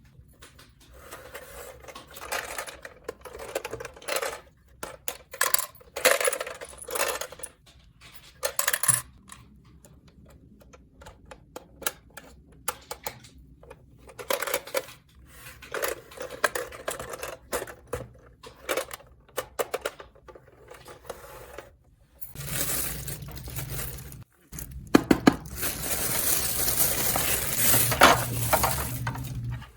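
Small hard toy pieces being handled: irregular light clicks and clatter. Near the end comes a longer, denser stretch of steady rattling.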